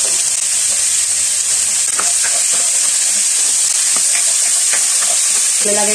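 Diced potatoes, carrots and onion sizzling steadily in hot oil in a pan, with a few light knocks of a spatula stirring them.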